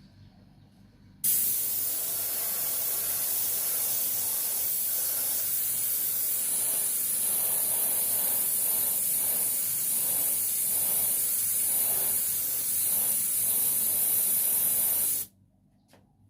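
A pressurised spray nozzle hissing in one continuous spray of about fourteen seconds, starting suddenly and cutting off sharply. In the middle it wavers slowly, about once a second.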